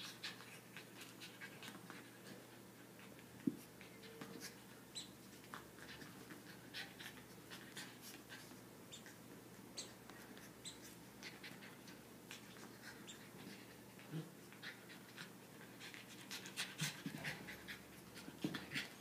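Pomeranian puppy chewing and mouthing a plush toy football: a scatter of small clicks and rustles, with a sharper click about three and a half seconds in and busier clicking near the end.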